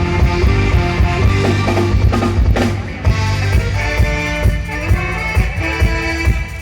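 Music with a drum kit keeping a steady beat under sustained pitched instruments.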